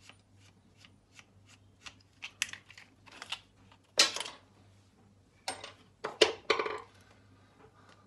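Hand-tool work on an old light fitting's plastic mounting box against a brick wall: a run of small screwdriver clicks and scrapes, with louder scrapes and knocks about four seconds in and again around six seconds in as the box is taken off the wall.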